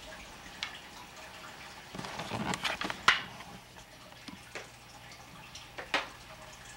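Scattered light taps and clicks of small objects being handled. A rustling clatter comes about two seconds in, with sharper clicks about three and six seconds in.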